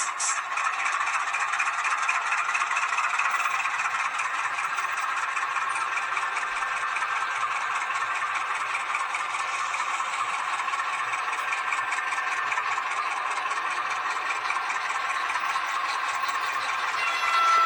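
H0 scale model locomotive running on the track, a steady small-motor and wheel rattle with fine rapid ticking.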